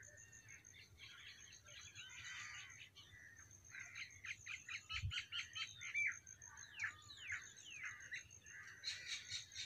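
Several small birds chirping and twittering in quick short notes, with one soft low thump about halfway through.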